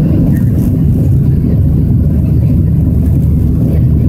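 Steady low rumble of a Boeing 737-700's CFM56-7B turbofan engines at climb power, heard inside the cabin from a window seat beside the wing, just after takeoff.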